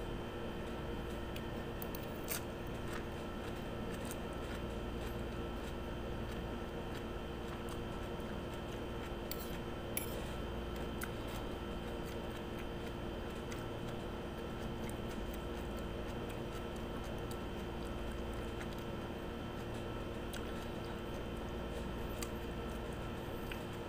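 A metal spoon scraping and clicking against a plate of sliced cucumber, a few faint scattered clicks over a steady background hum with several constant tones.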